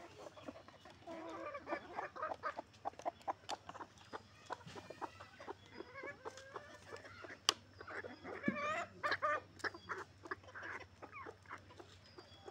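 Backyard hens clucking in short, repeated calls, among many quick sharp taps of beaks pecking on hard concrete.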